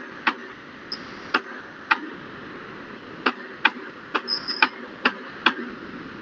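Computer mouse clicking about ten times at an irregular pace while handwriting on a digital whiteboard, each click sharp and short, over a steady microphone hiss.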